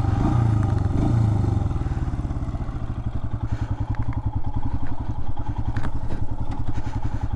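Royal Enfield Himalayan's single-cylinder engine running at low revs with an even, steady beat, a little stronger for the first second or so.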